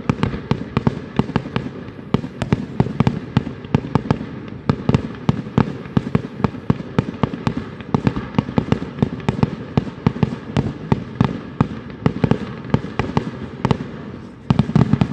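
Fireworks display: a rapid, continuous volley of sharp bangs from aerial shells, several reports a second, with a louder cluster near the end.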